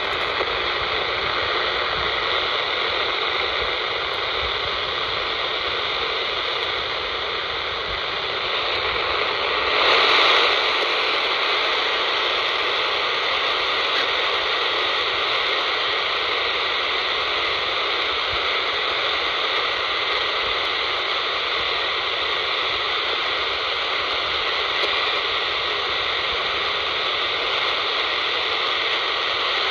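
AM radio static hissing steadily from a handheld scanner's speaker tuned to 27.045 MHz, with no voice coming through. A faint steady whistle sits under the hiss for the first eight seconds, and the noise swells briefly about ten seconds in.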